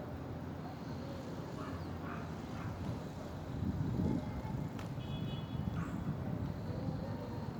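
Outdoor ambience: a steady low rumble with short animal calls several times, a sharp click a little past the middle, and a brief high chirp just after it.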